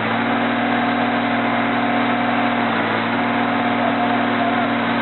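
Heavy diesel truck engine running steadily at low revs, its hum holding one even pitch throughout.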